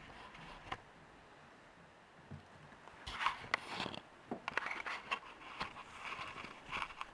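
Small clicks, taps and scrapes from handling the opened iPhone 3G and its parts and tools on a table. They are sparse at first and come in quick clusters from about three seconds in.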